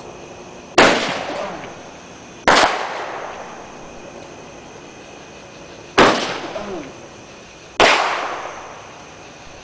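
Fireworks going off: four loud bangs, the first two close together, then a pause, then two more. Each bang is followed by about a second of echoing rumble that dies away.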